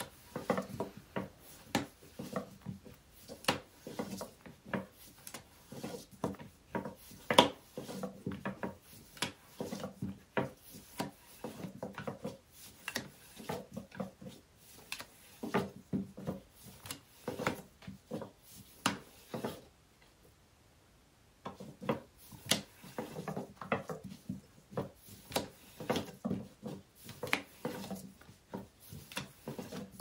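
A long, thin wooden rolling pin (oklava) rolling out thin yufka dough on an oilcloth-covered table: a run of irregular light wooden knocks, two or three a second, over a soft rubbing as the pin is worked back and forth. It stops for about a second and a half two-thirds of the way through.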